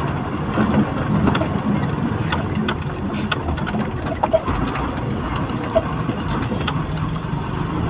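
Truck engine running steadily, heard from inside the cab while moving slowly in traffic, with road noise and scattered short clicks and rattles.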